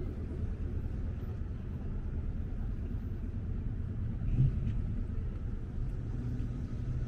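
Low rumble of street traffic, with a brief louder bump about four and a half seconds in and a steadier engine hum near the end.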